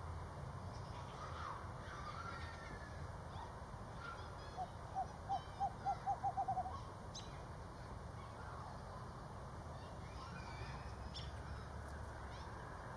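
Screech owl calling: a series of about ten short hoots, starting about four and a half seconds in, that come faster and faster over about two seconds.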